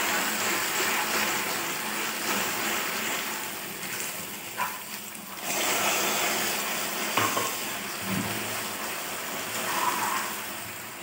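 Hot caramelized sugar sizzling and bubbling in a pan as water is mixed in and stirred with a spoon. A little past halfway, more water is poured in and the sizzling picks up again. There are a couple of light spoon knocks against the pan.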